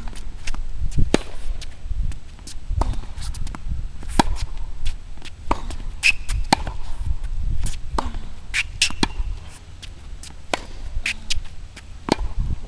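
Tennis rally on a hard court: a series of sharp pops as rackets strike the ball and it bounces, spaced from about half a second to a second and a half apart. A few short, high shoe squeaks come midway, and a steady low rumble runs underneath.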